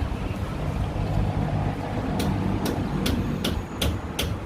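Hub retaining bolts being undone on a pickup's front wheel-bearing assembly: a run of sharp metallic clicks, a couple a second, starting about halfway through, over a steady low mechanical hum.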